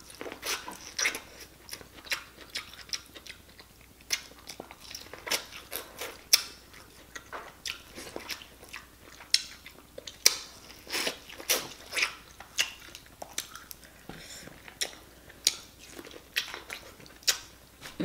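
Close-miked mouth sounds of a person eating sauce-soaked boiled corn and potato: wet chewing, biting and lip smacks, heard as irregular sharp clicks several times a second.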